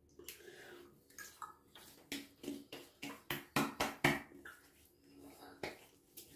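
Palms patting and slapping alcohol aftershave splash onto a freshly shaved face. Softer wet sounds come first, then a quick run of about eight slaps over two seconds, and one more slap near the end.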